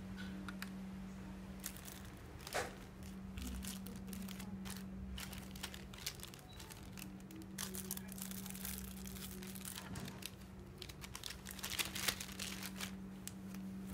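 Clear plastic bag crinkling and rustling in irregular bursts as a coiled cable is handled and pushed into it, with louder crinkles about two and a half seconds in and near the end. A steady low hum runs underneath.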